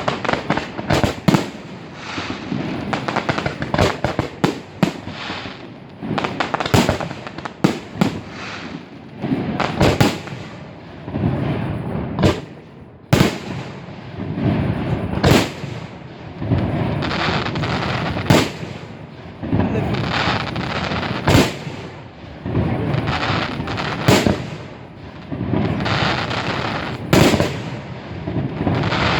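Fireworks display: a rapid, irregular series of sharp bangs from bursting aerial shells, each trailing off in an echo, with continuous crackling and rumbling between them.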